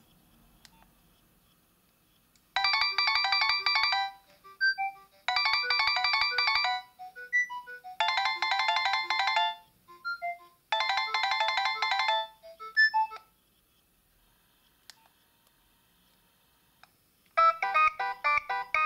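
Nokia 7250i ringtone playing from the phone's speaker. A short electronic phrase of chords sounds four times, with single melody notes between the repeats, and stops about 13 seconds in. A different ringtone starts with a quick run of notes near the end.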